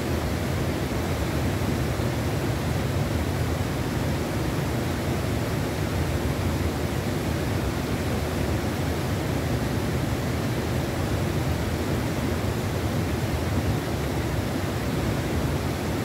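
Steady, even rushing of river water flowing.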